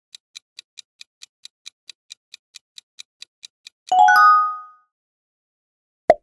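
Quiz countdown sound effects: a clock ticking about four times a second, cut off by a bright chime of several notes that marks the correct answer about four seconds in. Near the end comes a single short pop as the next question appears.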